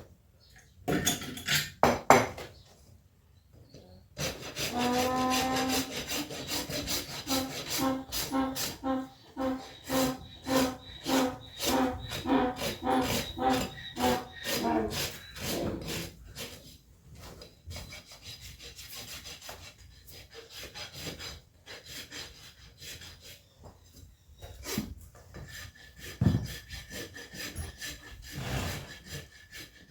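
Farrier's rasp filing a horse's hoof in rhythmic back-and-forth strokes, about two a second, each stroke with a ringing tone, after a couple of sharp knocks near the start. About halfway through the strokes turn lighter and more irregular.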